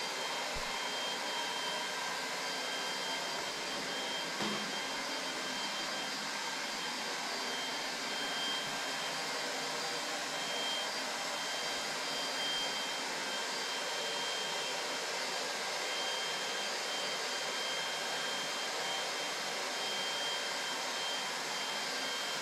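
An electric blower motor running steadily: a constant airy whir with a faint high whine over it.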